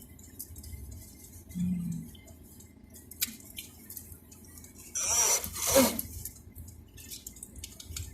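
Quiet eating and handling sounds at a table: scattered light clicks and clinks. A short hum comes about two seconds in, and a brief voice sound about five seconds in.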